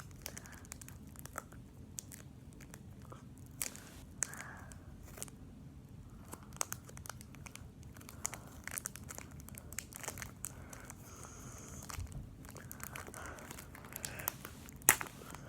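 Foil wrapper of a Pokémon booster pack being crinkled and torn open with fingers and teeth: scattered soft crackles and sharp clicks, with one louder snap near the end.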